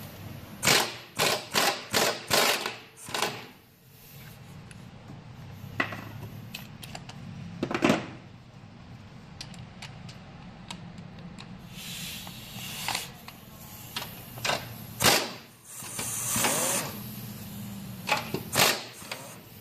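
Pneumatic impact wrench rattling in short bursts on nuts at the front strut tower, loosening them to take the suspension apart: about six quick bursts in the first three seconds, then single bursts now and then.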